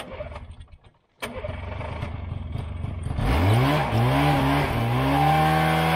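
Snowmobile engine running while stuck in deep snow. About three seconds in it revs up and is held at high revs as the rider tries to drive the machine out.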